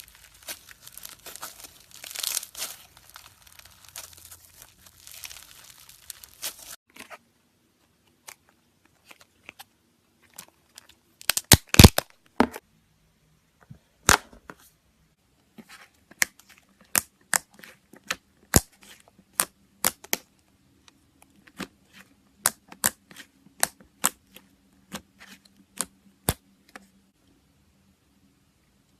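Slime being squeezed and poked by hand: a dense crackling for the first six seconds or so, then separate sharp pops and clicks, with a quick burst of them near the middle.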